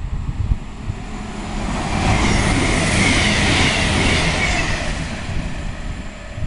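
Class 390 Pendolino electric express train passing at speed, with a rushing hiss of wheels and air that swells to its loudest about two to four seconds in, then fades. Wind buffets the microphone throughout.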